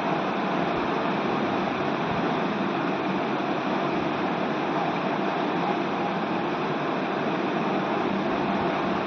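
A steady, even rushing noise with no rhythm, no pitch and no change in level.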